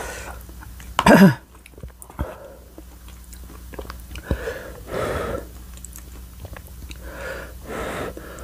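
Close-miked chewing and wet mouth noises from eating chewy tteokbokki rice cakes in a creamy rosé sauce. There is a loud, short mouth sound about a second in.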